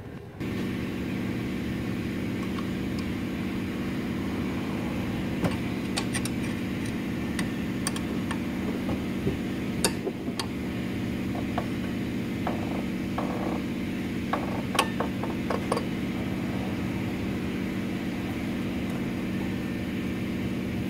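A steady background hum, with scattered clicks and light knocks, most between about 5 and 16 seconds in, as a new serpentine belt is worked onto the engine's pulleys by hand, with a wrench on the tensioner.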